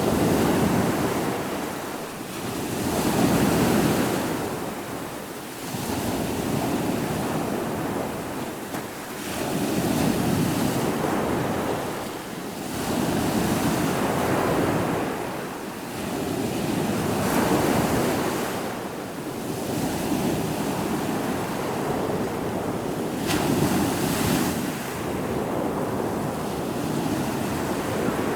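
Ocean surf, waves breaking and washing in, swelling and ebbing every three to four seconds.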